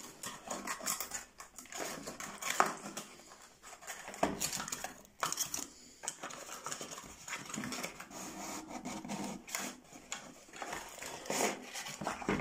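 Cardboard product packaging handled and unpacked by hand: box flaps and inner cardboard trays rustling, scraping and tapping in irregular short clicks.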